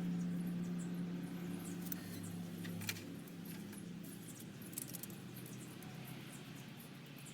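Scattered light metallic clicks and taps as the rocker arm bolts and parts are handled on the cylinder head, over a vehicle engine hum that fades out over the first three seconds.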